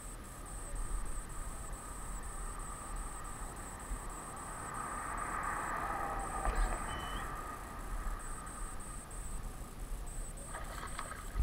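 Insects trilling steadily outdoors: a high, even trill pulsing about three times a second. Midway a soft rushing sound swells and fades.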